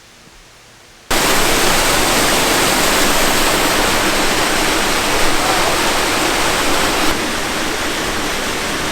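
Waterfall's steady rush of falling water, cutting in abruptly about a second in and easing slightly about seven seconds in.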